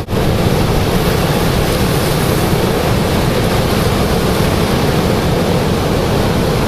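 Ocean surf breaking, heard as a steady loud rushing, with wind buffeting the microphone.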